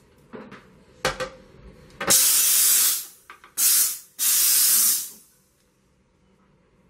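Sauber Brilliance steam cleaner letting out steam in three loud hissing bursts: the first and last about a second long, a shorter one between. A couple of short knocks come just before.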